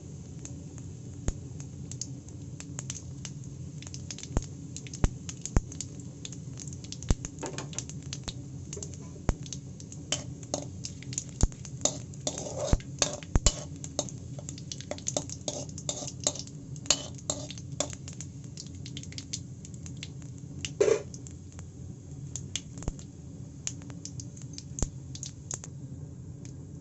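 Whole cumin seeds, a bay leaf and dried red chillies tempering in hot oil in an iron kadai: scattered sharp crackles and pops over a steady low hum, thickest in the middle. A metal spatula stirs and scrapes the pan, with one louder knock about twenty seconds in.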